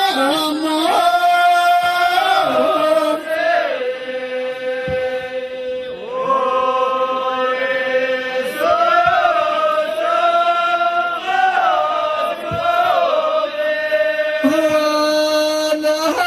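Ahwach chant: men's voices singing a refrain in long held notes, each lasting a few seconds, that slide up or down to the next pitch.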